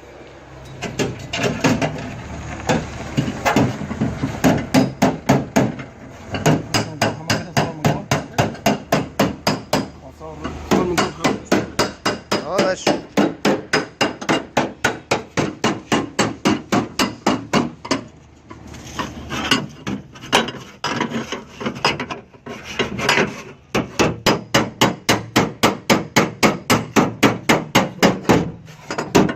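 Hand hammer beating a car's sheet-metal rear door panel, fast runs of about four blows a second with short pauses between the runs, smoothing out the panel.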